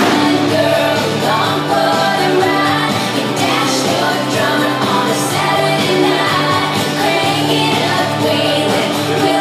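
Recorded music played loud: a song with singing.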